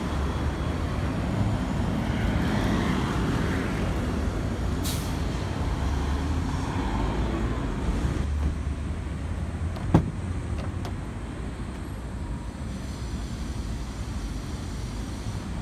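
Steady road-traffic rumble. About ten seconds in comes one sharp click, with a fainter one just after: the N-VAN's front door latch being opened.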